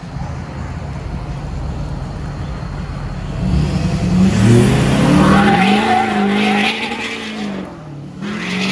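Lifted pickup truck's diesel engine rumbling low, then pulling away and accelerating past: about three and a half seconds in the engine note rises and grows louder, wavers through the middle, dips briefly and climbs again near the end.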